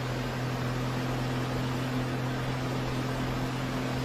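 Steady rushing of muddy floodwater across a road, with a low, even hum underneath.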